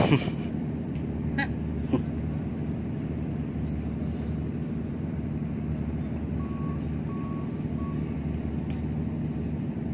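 Steady low drone of a docked ship's engine. A few sharp clicks come in the first two seconds, and three short high beeps sound about two-thirds of the way through.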